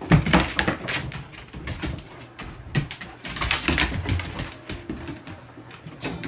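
Two dogs scrambling and play-wrestling over a toy on a wooden floor: irregular clicking and skittering of claws on the floorboards, with bursts of scuffling.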